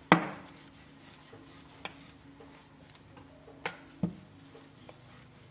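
Wooden rolling pin rolling out roti dough on a flat rolling surface, with a few sharp knocks as the pin taps down; the loudest knock comes right at the start, smaller ones near the middle and a double knock later.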